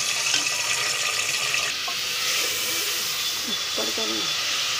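Mutton pieces sizzling steadily in hot oil in an aluminium pressure cooker, just added to the pan and being turned with a spatula as they start to brown.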